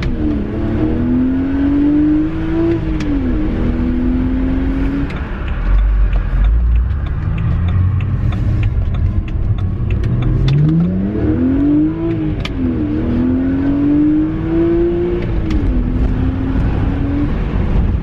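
BMW N52 3.0-litre straight-six, heard from inside the cabin, revved hard through the gears: the engine note climbs and drops back at each upshift, in two pulls with a stretch of low road rumble between them.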